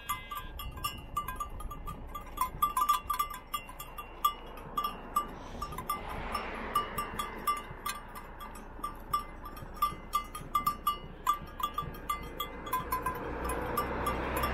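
Small bell on a grazing sheep's neck clinking irregularly, many short metallic clinks as the sheep moves and grazes. A soft rushing noise swells around six seconds in and again near the end.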